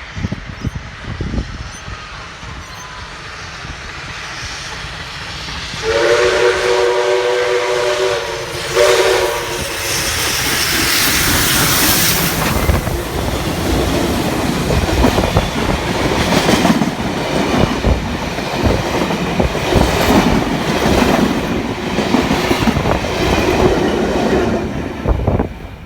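A passing train sounds two blasts of a multi-note horn, a long one and then a short one, then runs past close by with its wheels clattering over the rail joints.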